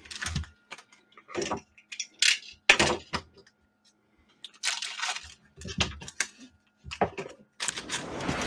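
Plastic wrappers of 2021 Donruss baseball card packs crinkling in a series of short bursts as the packs are handled, with a longer stretch of crinkling near the end.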